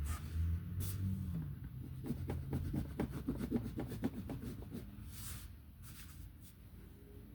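A colouring tool being stroked back and forth on paper, filling in a colouring page: a run of quick scratchy strokes about two seconds in, easing off and getting quieter near the end.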